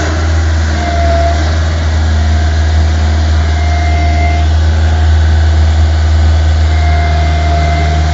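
Engine of a self-propelled boom lift running steadily, with a thin whining tone that comes and goes several times as the machine moves.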